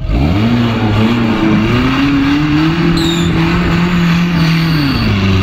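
Modified off-road 4x4's engine revving up hard and held at high revs, then dropping back near the end.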